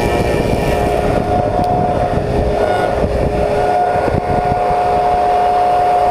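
Slab surfacing machine's cutter head, fitted with six replaceable insert knives, running steadily while surfacing a willow slab, with a steady motor whine over a rough rumble. The whine grows stronger a little past halfway.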